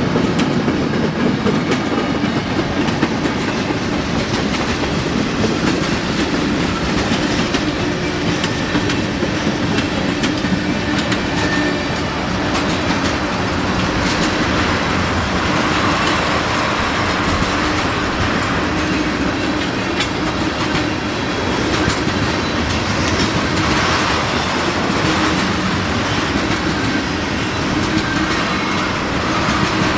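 Freight train cars rolling past in a steady stream of wheel-on-rail noise, with clicks as the wheels cross rail joints.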